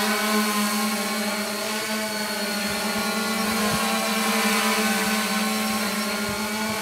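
Multicopter drone's motors and propellers humming steadily in flight, a stack of even tones.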